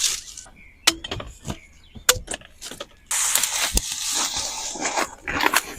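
A few separate sharp knocks, then about two seconds of dense dry rustling and crackling with clicks in it.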